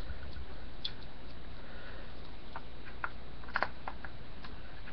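A few light, scattered clicks and taps as the stuck push pin of a Tippmann A5 paintball marker is forced out of the receiver, two of them close together a little past halfway.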